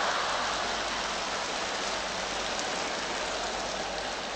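Applause from a large concert audience, an even clapping noise that slowly dies down.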